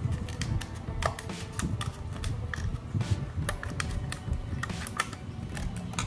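Scissors cutting through a thin plastic water bottle: irregular sharp clicks and crackles of the plastic, several a second. Background music plays underneath.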